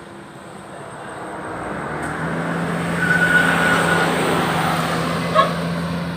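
Heavy diesel truck engine running steadily, with a louder rush of engine and road noise that swells over a few seconds and then eases. A brief high whistle rides on it, and a short squeak comes near the end.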